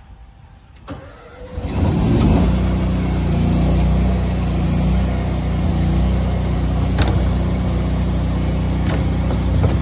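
Engine on a bin-washing rig starting about a second and a half in, then running steadily at a constant speed, started to get the wash water heater going.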